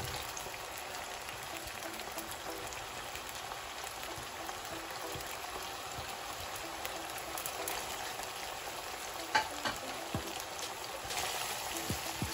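Sliced bell peppers and carrot strips frying in hot oil in a frying pan, a steady sizzle. There are two short clicks about nine and a half seconds in, and the frying grows louder near the end as the vegetables are stirred with a spatula.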